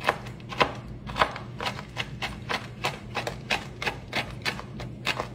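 A knife chopping shelled roasted pistachios on a wooden cutting board: quick, sharp chops, about three to four a second.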